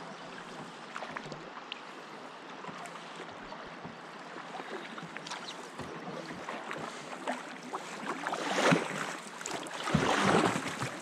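Canoe paddle strokes in calm river water over a steady hiss, with two louder splashing strokes near the end.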